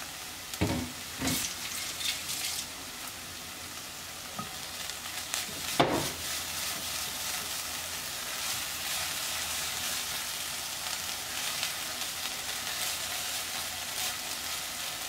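Ground beef and diced red bell pepper sizzling in an enamelled cast-iron pot while a silicone spatula stirs them, with a few sharp knocks about half a second, a second and six seconds in; a steady frying hiss runs under it all.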